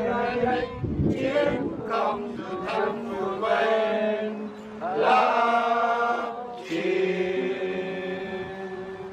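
Chanting voice in slow, drawn-out phrases, ending in one long held note that fades over the last two seconds.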